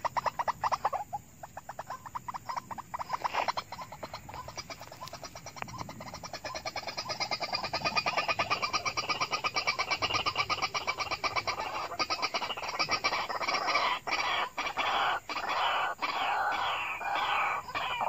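White-breasted waterhen (ruak-ruak) calling: a fast run of repeated notes, many a second, that grows louder and fuller from about three seconds in, with a few short breaks late on and quick falling notes near the end.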